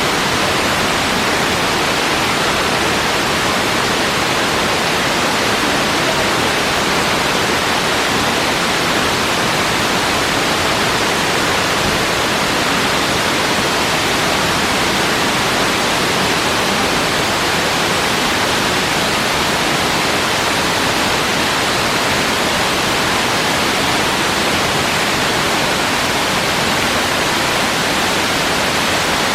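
Waterfall about 60 metres high, a branching fall with water pouring down a rock face: a steady rush of falling water.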